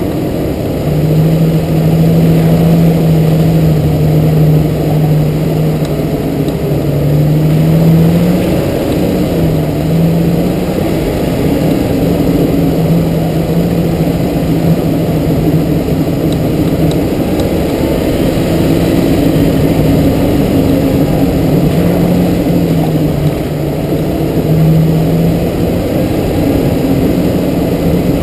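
Jeep TJ's engine running steadily as it drives along a dirt trail, its pitch rising and falling with the throttle, over a rumble of tyres and jolting.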